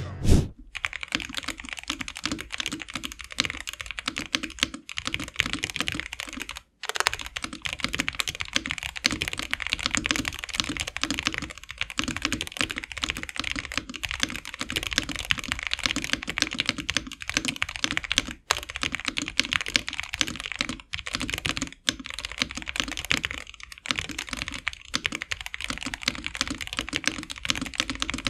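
Typing test on a Yunzii B75 Pro 75% mechanical keyboard fitted with factory-lubed Yunzii Milk linear switches, PBT double-shot Cherry-profile keycaps and a polycarbonate plate. The keystrokes come fast and continuous, with a few brief pauses and one louder knock right at the start.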